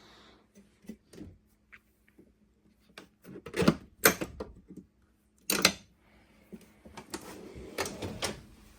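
Combination wrenches being handled and laid against each other: a series of separate clanks and knocks, the loudest a few seconds in and again near the end.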